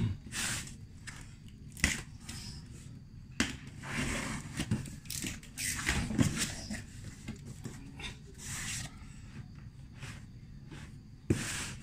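Cardboard shipping carton being opened by hand: its flaps pulled apart, scraping and rustling in irregular bursts, with a few sharp knocks.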